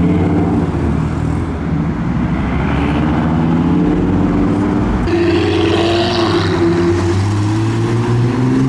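Several modified cars' engines and exhausts running loud as the cars drive off one after another; the engine pitch climbs as a car accelerates about halfway in and again near the end.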